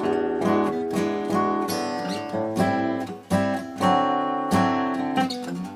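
Washburn Timbrewood WD-48S dreadnought acoustic guitar being played, picked and strummed chords ringing out with a new note or chord about every half second. The guitar is freshly set up with a new bone saddle.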